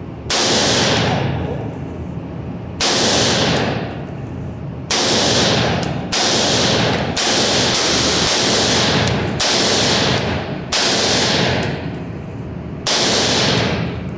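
A string of about nine single rifle shots from an AR-15 in .300 Blackout, fired one at a time a second or two apart. Each loud report trails off in about a second of ringing.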